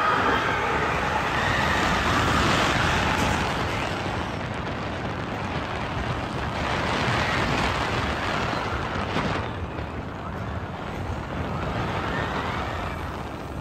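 Roller coaster train speeding along its steel track, heard from on board: a loud, steady rush of wind and wheel noise that eases off about two-thirds of the way through.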